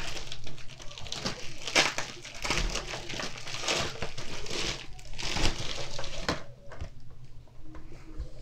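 Packaging crinkling and rustling as it is handled and unwrapped, busy for most of the time and dying down to faint handling noises near the end.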